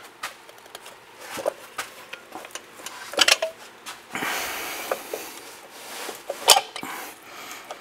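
Metal clinks and scraping as rear drum brake shoes and their springs are worked off the backing plate in one piece, with a sharp clink about three seconds in and another about six and a half seconds in, and a stretch of rasping rub between them.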